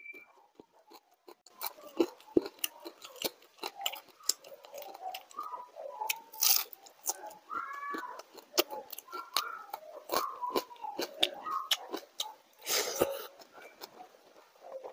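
Close-miked chewing of crisp fried food, with many sharp crunches and wet mouth clicks, plus two louder brief noisy bursts, about six and a half and about thirteen seconds in.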